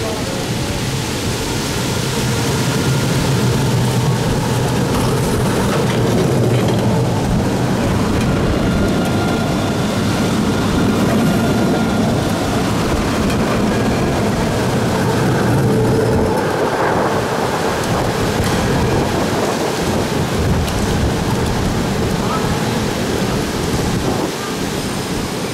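Low-floor electric tram rolling past close by, a steady heavy rumble and hiss from its wheels on the rails with a faint hum from the traction equipment, loudest around the middle as it goes by and easing off afterwards.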